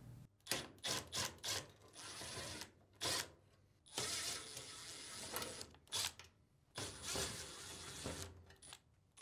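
Phillips screws being turned out of a dryer's sheet-metal cabinet with a screwdriver: a few short quick sounds, then several longer stretches of turning and scraping with gaps between them.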